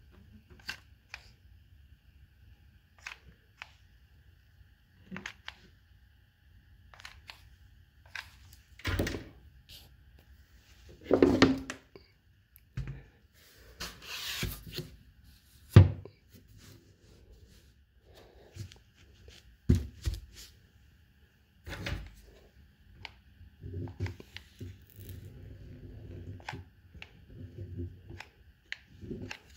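Hand-assembly handling noise: scattered clicks and knocks, with several louder thunks and a short rustling, tearing noise about halfway through.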